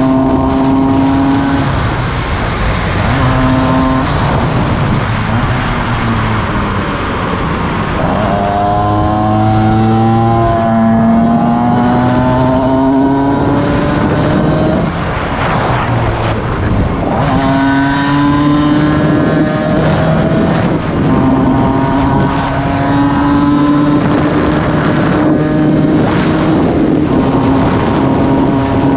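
Cagiva Mito 125's two-stroke single-cylinder engine under way, its pitch climbing again and again as it accelerates and falling back between pulls, over steady wind rush on the microphone.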